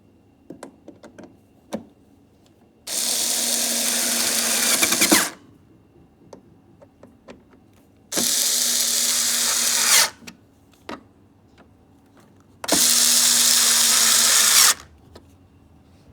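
A power drill runs in three bursts of about two seconds each, with small clicks and knocks of handling between them.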